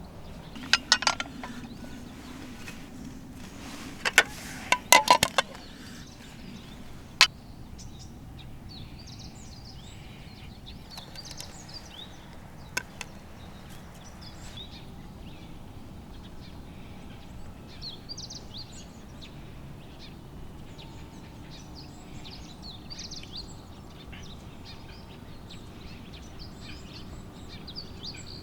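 Outdoor ambience at camp: a steady low background hiss with a few sharp clicks about a second in and again around four to five seconds in, then many faint, short, high chirps, typical of birds.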